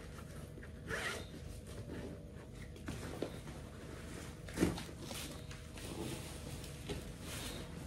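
Faint handling noises of a backpack being moved about: scattered rustles and light knocks, with one louder thump about four and a half seconds in.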